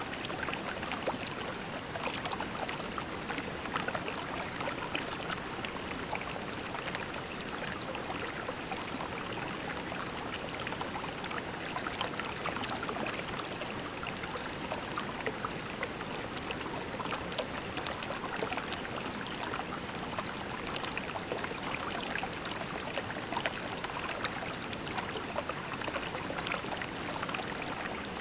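Shallow creek water flowing and trickling over pebbles, a steady babble with many small splashes and gurgles.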